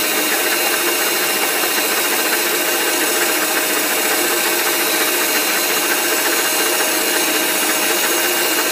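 Electric stand mixer running at a constant speed, its motor giving a steady drone with a faint even whine as the twin beaters whisk sponge-cake batter to beat out the lumps.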